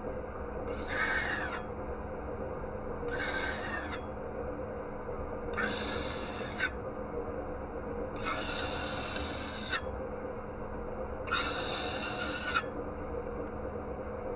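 Five slow, even strokes of an abrasive being worked by hand against the knife, with a rasping scrape roughly every two and a half seconds. A steady low hum runs underneath.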